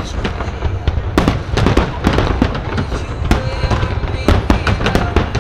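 Fireworks display: shells bursting in quick succession, several sharp bangs and crackles a second over a continuous deep rumble.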